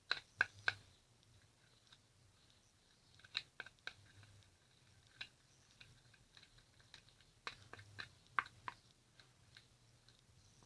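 Homemade slime of glue, talc and shaving foam being mixed and worked in a small pan: faint sticky clicks and squelches in irregular clusters, the biggest cluster near the end.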